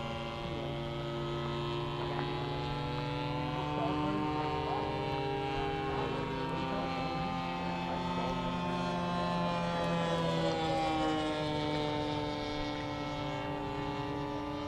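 Radio-controlled model airplane engine and propeller droning in flight, its pitch slowly rising and falling as the plane manoeuvres.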